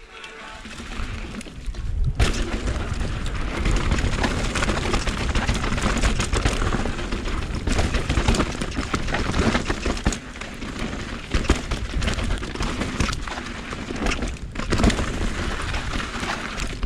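Mountain bike descending a rough downhill trail at speed: wind rumbling on the microphone and the bike clattering and knocking over bumps. It starts about two seconds in, after a brief quieter moment.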